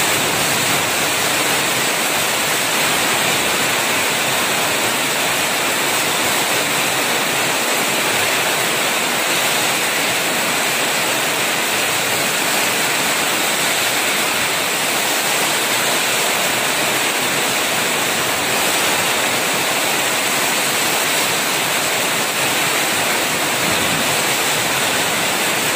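Heavy wind-driven rain pouring down in a downpour: a loud, steady hiss of rain with no break.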